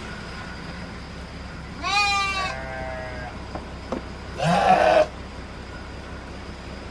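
Garut sheep bleating in the pen: a quavering bleat about two seconds in, then a louder, harsher bleat about four and a half seconds in, with a couple of light knocks between them.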